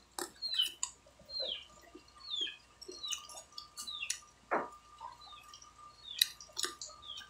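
Close-up chewing of unripe sineguelas (Spanish plums): a quick series of mouth clicks and smacks about twice a second, with one louder crunch about four and a half seconds in.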